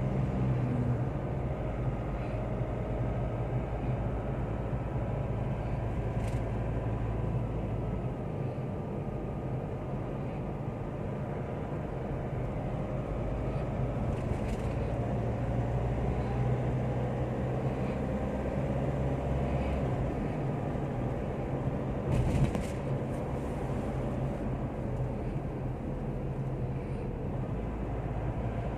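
Road and engine noise inside a moving car's cabin: a steady low hum, with a brief knock about 22 seconds in.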